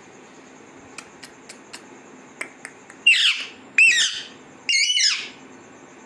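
Alexandrine parakeet giving three short, harsh squawks in quick succession about halfway through, after a few faint clicks.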